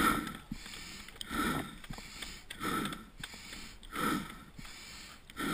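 A mountain bike racer's own heavy breathing close to the microphone: a deep breath about every second and a half, five in all.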